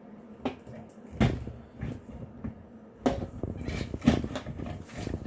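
Irregular knocks and clicks of channel-lock pliers gripping and twisting at a part of a Nelson traveling lawn sprinkler, the loudest knock about a second in.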